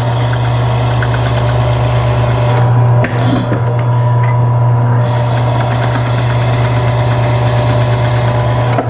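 A 10-inch 320-watt KWS electric meat slicer runs with a steady motor hum while its spinning blade rasps through a chicken breast that is still frozen. The carriage is pushed through in strokes, with a short break in the cutting noise about three seconds in.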